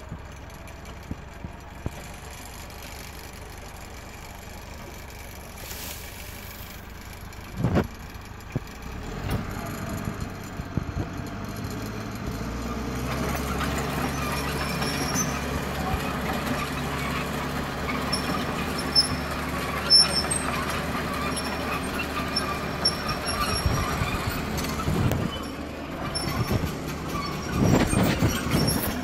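International TD8G crawler dozer's diesel engine running steadily, then picking up and working harder about twelve seconds in as it drags a fallen log up a steep slope. Faint high squeaks come and go over the engine.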